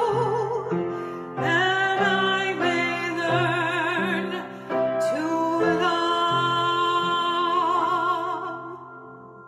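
A singer with strong vibrato over instrumental accompaniment, fading out near the end.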